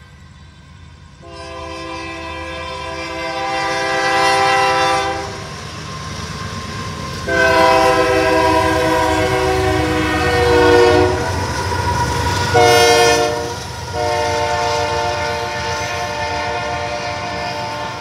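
Union Pacific GE AC44CW locomotive's multi-chime air horn sounding the grade-crossing signal (long, long, short, long) as it passes, over the rumble of the train going by. The last long blast runs on past the end.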